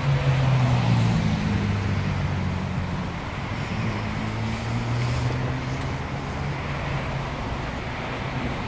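Road traffic: cars and SUVs driving through an intersection, engines running with a steady low hum under tyre and road noise, a little louder in the first couple of seconds.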